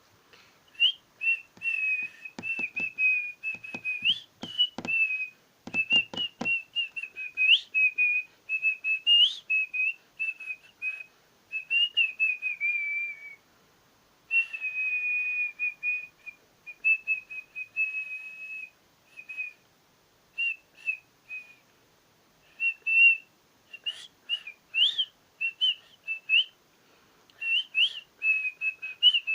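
A person doing artistic whistling: a high, warbling whistled line that mostly holds around one pitch, with quick upward flicks and short breaks. A run of faint clicks sounds under it in the first few seconds.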